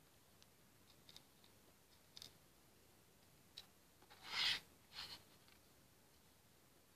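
Faint small plastic clicks as hama beads are pressed onto the pegs of a plastic pegboard, with a louder brief rustling scrape about four and a half seconds in and a shorter one just after.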